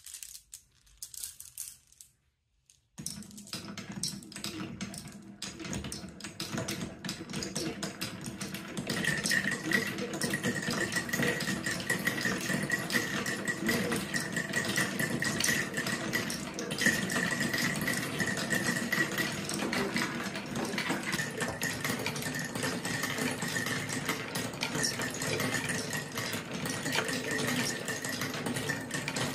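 Dozens of marbles rolling and clattering down the wooden rails and spirals of a Quadrilla marble run, a dense, continuous rattle of many small clicks. It starts about three seconds in after a few light clicks, and grows louder a few seconds later.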